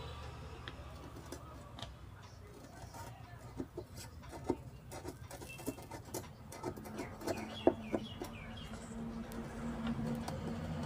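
Faint scattered clicks and taps over a low steady hum, with a few short chirping calls about seven to eight seconds in.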